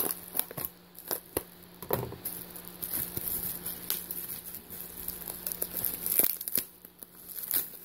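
Bubble wrap and plastic packing tape crinkling and tearing, in irregular crackles and rustles, as a taped package is slit with a utility knife and pulled open by hand.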